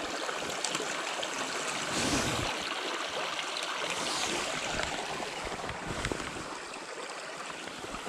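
Small woodland stream running steadily over snags and stones, with brief louder splashes about two and four seconds in as released fish are dropped back into the water.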